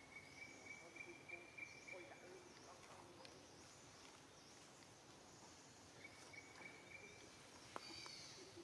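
Near silence: faint outdoor ambience with a thin, high, steady trill that runs for the first two seconds or so and again for about a second later on, and a couple of faint clicks near the end.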